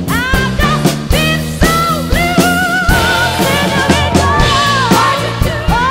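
Drum kit with Sabian cymbals played along to a recorded song: steady drum and cymbal hits under a band track with a lead vocal and bass.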